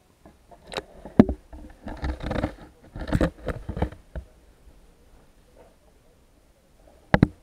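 Knocks, scraping and water sloshing around an SJ4000 action camera in its waterproof case as it is pushed underwater through reed stems, busiest in the first half, with a sharp double knock near the end.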